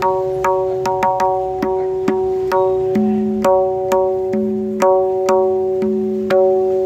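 Tabla dayan (right-hand drum) struck with the fingers, about two strokes a second with a quick flurry about a second in. Each stroke rings on at one clear, steady pitch, the drum's tuned tone as it is tested.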